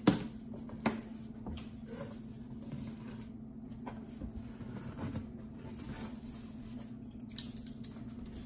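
Cardboard box flaps being pulled open and folded back, with rustling and light taps of cardboard. A sharp knock right at the start, a smaller one about a second in and another near the end. A steady low hum runs underneath.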